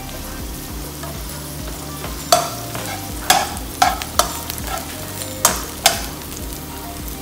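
Chopped green onions sizzling in oil in a hot nonstick wok. From about two seconds in, a metal slotted turner stirs them, knocking and scraping against the pan about six times.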